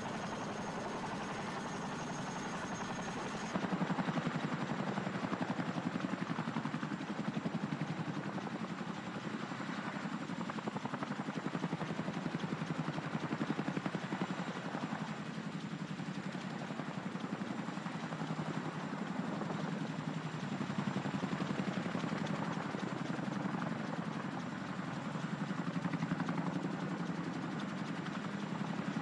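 A steady background noise for the first few seconds, then, about three and a half seconds in, a CH-47 Chinook tandem-rotor helicopter hovering low, its twin rotors making a rapid, steady beat.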